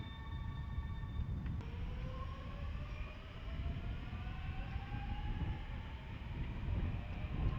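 An electric train's motor whine rising steadily in pitch over a low rumble, starting about a second and a half in, as the train picks up speed. Before that come steady humming tones.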